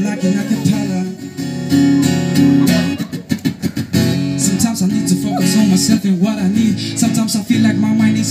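Acoustic guitar strummed live, accompanying a woman singing. About three seconds in, the strumming breaks into a quick run of sharp percussive strokes.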